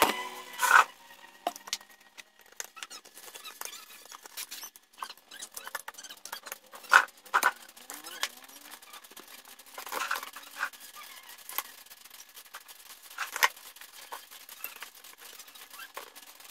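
Handling noise from a plastic power strip and mains cable being moved about on cardboard: scattered clicks, taps and rustles, with sharper knocks about a second in, around seven seconds in, and again near ten and thirteen seconds.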